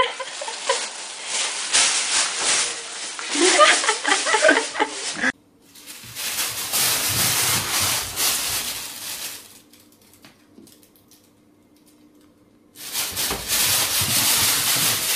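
Thin plastic bags crinkling and rustling as cats scramble about in them, in three stretches, with a quieter gap of about three seconds after the middle.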